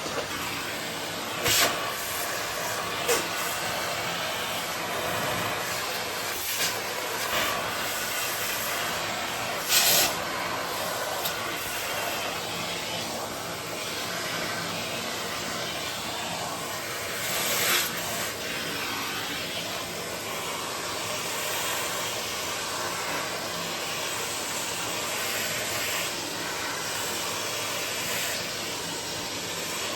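Vacuum cleaner running steadily, with a few short louder moments, the loudest about ten seconds in.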